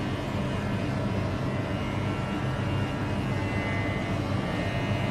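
Electric dog-grooming clippers running with a steady low buzz as they trim a poodle puppy's fur.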